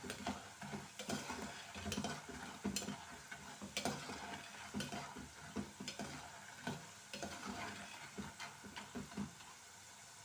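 Raw nendran banana slices deep-frying in oil in an aluminium pot, a steady sizzle, while a perforated steel skimmer stirs through them with irregular scrapes and knocks against the pot; the stirring stops about nine seconds in. The oil is still bubbling hard, the sign that the chips are not yet fully fried.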